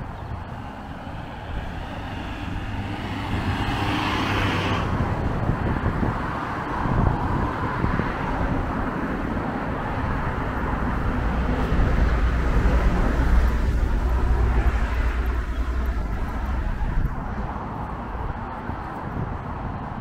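Street traffic passing close by: a hiss of tyres fades out about five seconds in, then a vehicle's low engine rumble builds, is loudest around the middle, and fades away.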